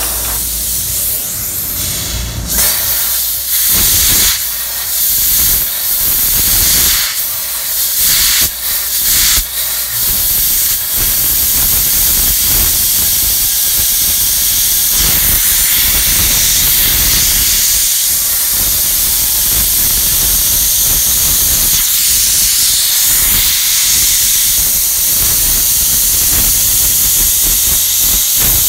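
Electric arc welding a seam in steel: a loud, high-pitched hissing arc that starts about two and a half seconds in, breaks off and restarts several times, then runs steady.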